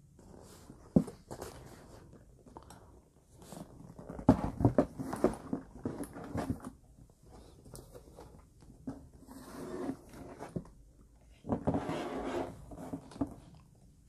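Handling noise of a pair of leather knee-high boots being moved and set down on their shoe box: irregular knocks and rustling of leather, with a sharp knock about a second in and a busy run of knocks from about four to six and a half seconds in.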